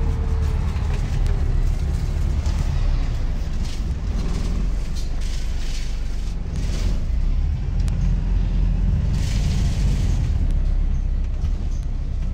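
Inside a Volvo B5TL / Wright Gemini 3 double-decker bus on the move: the diesel engine and road noise make a steady low rumble, with short rattles from the bodywork and fittings coming and going every second or two.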